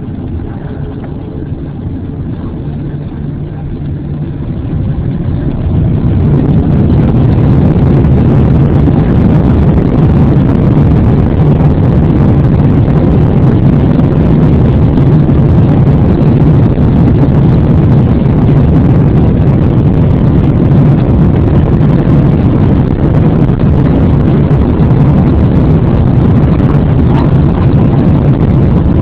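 Jet airliner engines spooling up to takeoff power. The noise swells over a few seconds, starting about four seconds in, then holds as a loud, steady roar with a deep rumble during the takeoff roll.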